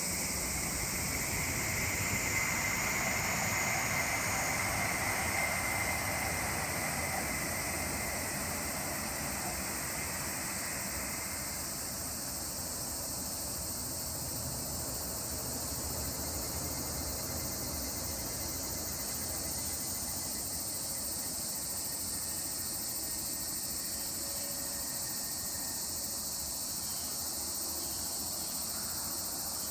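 A Hokuriku Shinkansen bullet train passing at speed on its viaduct in the distance: a broad rushing noise with a faint whine that fades away over about the first twelve seconds. Steady high-pitched insect chirring runs underneath.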